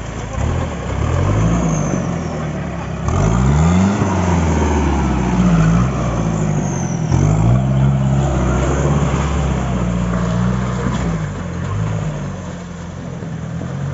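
Mahindra jeep engine revving up and down over and over as it claws through a deep muddy rut, its pitch rising and falling every second or two, then easing slightly near the end.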